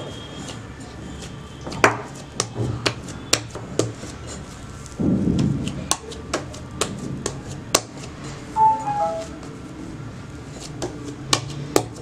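Hands kneading and punching soft yeast dough in a glass mixing bowl, with irregular sharp knocks and taps against the glass and a louder squashing push about five seconds in.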